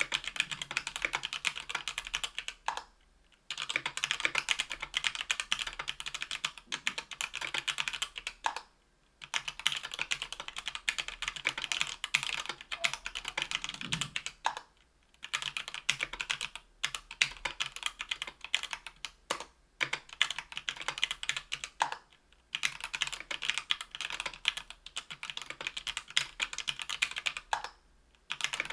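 Fast typing on a Tofu 60% aluminium-case keyboard with stock, unlubed JWK H1 78g linear switches on an aluminium plate, under GMK keycaps. It comes in long runs of rapid keystrokes broken by short pauses several times.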